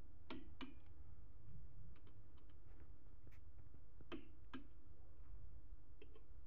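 Torque wrench set to 20 lb-ft clicking as it reaches torque on engine main bearing cap bolts: two pairs of sharp clicks, one near the start and one about four seconds later, with lighter metallic ticks between.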